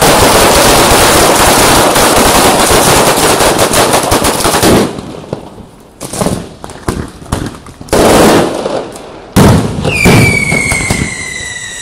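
Mascletà firecrackers: a dense, continuous rattle of ground-level firecracker strings for about five seconds, then scattered loud bangs of aerial firecrackers. Near the end comes a whistling firework with a slowly falling whistle.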